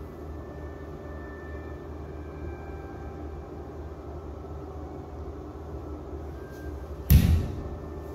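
Steady low hum of a large sports hall's room tone. About seven seconds in, one loud, sharp thump comes with a taekwondo front kick in a poomsae.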